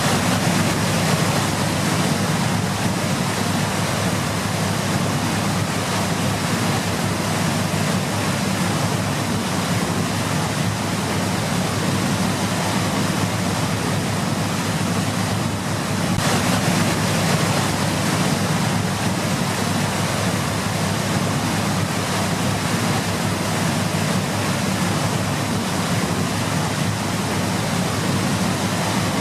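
Waterfall rushing: a steady, even roar of falling water, with a brief dip about halfway through.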